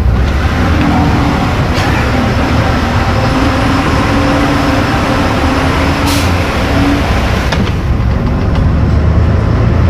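Volkswagen/MAN 18-280 OT bus engine running steadily with a deep rumble. A steady whine runs through the middle, and there is a short sharp sound about six seconds in.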